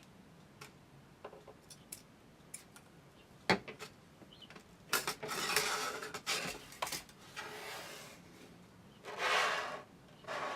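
Small clicks and taps of tools and plastic parts being handled at a hobby bench, with a sharper knock about a third of the way in and two longer scratchy rubbing noises later on.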